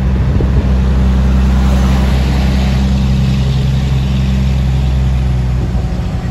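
Heavy truck's diesel engine running steadily, heard from inside the cab, with a brief dip in level near the end.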